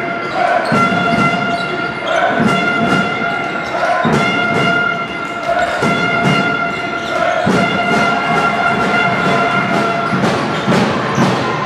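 Basketball dribbled on a hardwood court, thudding every second or so, under hall noise with a steady high tone running throughout.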